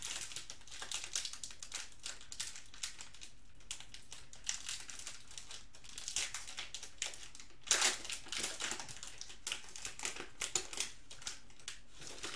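Foil trading-card pack crinkling and crackling in the hands as it is worked open, in irregular bursts, the loudest about eight seconds in.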